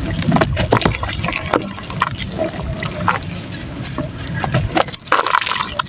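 Chunks of soft dry mud crumbling in water, with a dense, irregular run of small wet crackles, pops and splashes.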